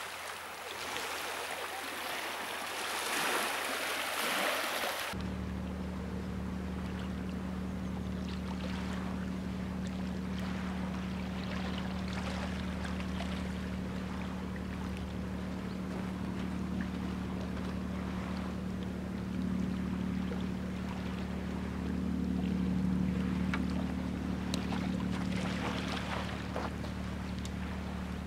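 A few seconds of even hissing noise, then a sudden switch to a steady low engine-like hum that runs on unchanged, with a few faint ticks over it.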